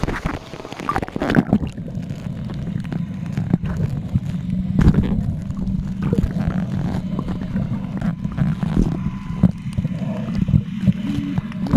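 An engine running steadily with a low drone, with scattered knocks and bumps over it.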